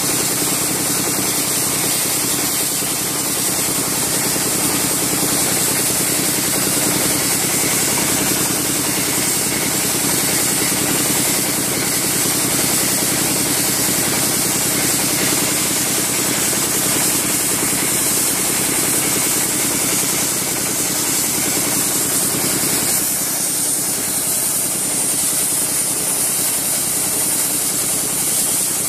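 Wet sandblaster at work: a steady, loud hiss of the water-and-sand jet striking a steel tank, over the even hum of the machine driving it.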